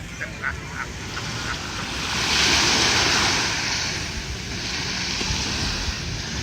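Ocean surf: a wave breaks and washes up the beach, swelling about two seconds in and then easing off, with wind rumbling on the microphone.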